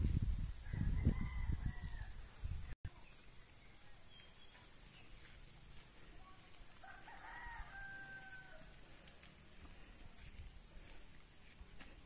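A rooster crows twice in the distance, a shorter crow about a second in and a longer one with a held final note past the middle. A loud low rumble dominates the first two seconds and cuts off abruptly, and a steady high hiss runs underneath.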